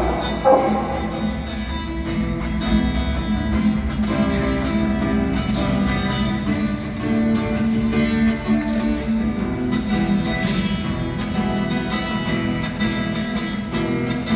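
Strummed acoustic guitar playing an instrumental passage of a song between sung verses, at a steady level.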